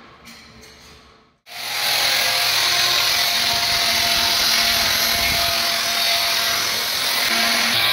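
A few faint clicks, then about a second and a half in an electric power tool starts abruptly and runs loud and steady, with a high, even hiss-like noise.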